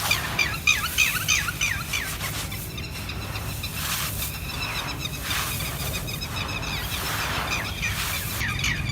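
Dry grey concrete crumbling and crunching, a run of gritty crunches roughly once a second with fine crackling between them.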